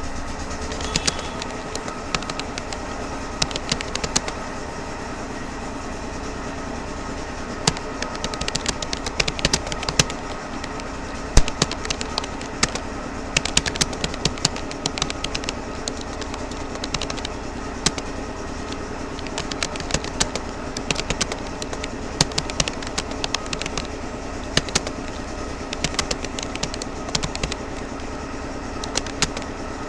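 Typing on a Rapoo computer keyboard: irregular keystroke clicks at several a second, with short pauses, over a steady background hum.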